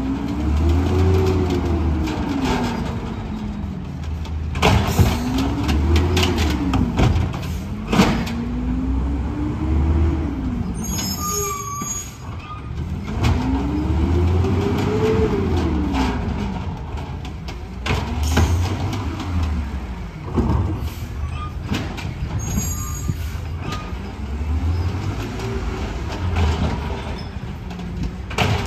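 Compressed-natural-gas engine of a 2011 Peterbilt 320 refuse truck revving hard and dropping back about six times as it powers its Amrep automated side-loader arm through lifting and dumping carts. A few sharp bangs from the carts and arm, and short hisses of air, come in between.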